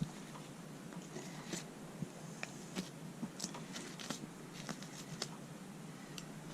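Knife cutting meat away from a hanging deer carcass along the backbone: scattered faint clicks and ticks at an uneven pace.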